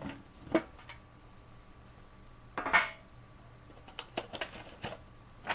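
Handling of a metal Yu-Gi-Oh collector's tin: scattered clicks and light knocks, with one louder short scrape or rustle near the middle, over a faint steady electrical hum.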